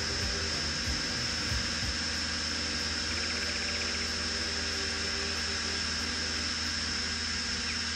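DJI Mavic 2 Pro quadcopter's propellers buzzing steadily in flight, with a constant high whine over the buzz.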